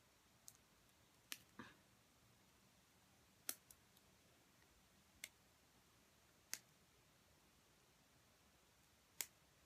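Faint, scattered clicks and taps, about eight spread irregularly, from a small plastic lip stain sample being worked at by hand as it resists opening.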